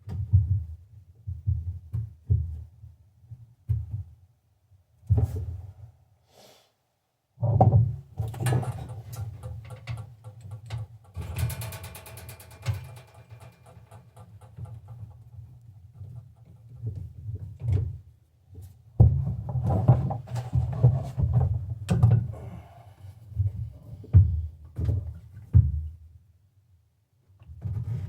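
Irregular knocks, clunks and handling noises as diesel heater parts are fitted back together by hand, with a short rapid rattle of clicks a little before the middle.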